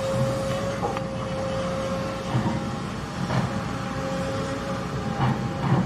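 Kobelco hydraulic excavator's diesel engine running while it digs, with a steady whine over the rumble. A few short knocks come through, the loudest near the end.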